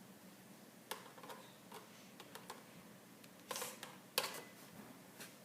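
Scattered light clicks and taps of a small screwdriver working a screw out of plastic, with a short cluster of clicks a little past three seconds in and the sharpest click about four seconds in.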